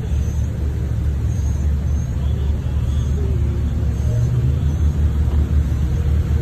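Jeep Wrangler engines idling and rolling slowly past, a steady low rumble.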